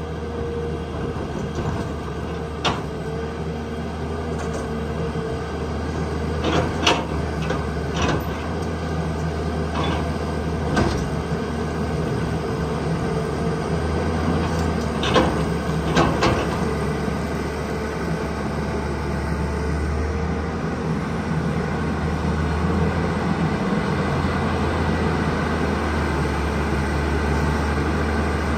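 Tata Hitachi 200 excavator's diesel engine running steadily under digging load, with sharp clanks and knocks of the bucket striking rock and soil scattered through, a pair close together about seven seconds in and another pair around sixteen seconds.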